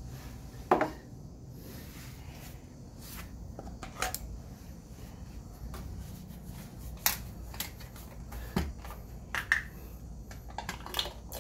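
Scattered light clicks and knocks of parts being handled as a red plastic funnel is fitted into the scooter's oil filler neck, the loudest about a second in, over a low steady hum.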